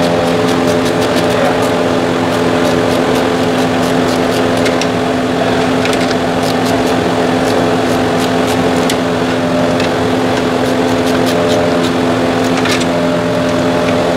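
Steady machine drone at one unchanging pitch, a motor or engine running in the background, with scattered light clicks of parts being handled.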